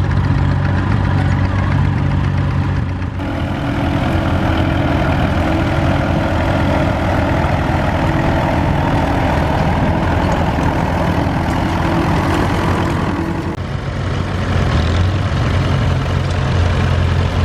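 Vintage tractor engines running steadily under ploughing load. The engine sound changes abruptly about three seconds in and again near fourteen seconds.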